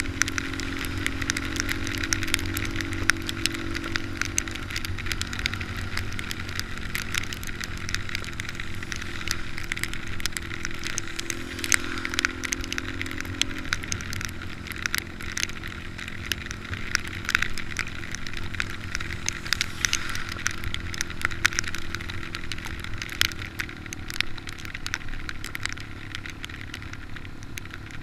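Small motorcycle engine running while riding downhill in the rain, its note stronger near the start and again about halfway through. Rain and wind crackle steadily on the microphone.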